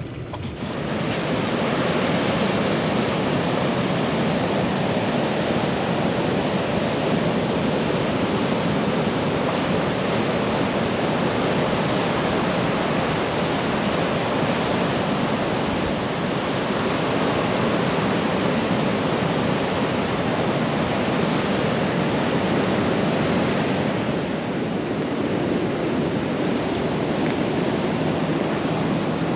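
Heavy storm surf from the ocean, a steady loud rushing with no let-up, during severe flood warnings.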